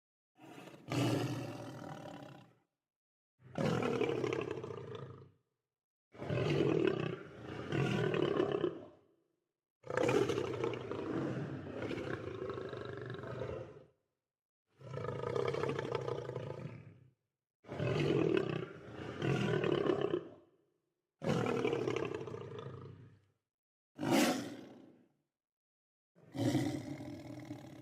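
Lion roaring, a string of about ten separate deep roars and growls, each a second or two long with one longer one near the middle, separated by short gaps of dead silence.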